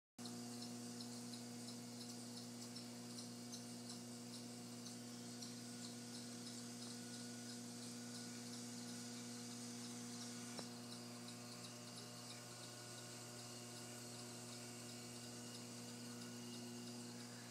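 A steady low hum with a few fixed tones. Over it runs a faint, rapid high pulsing like insects chirping, with one faint click about ten seconds in.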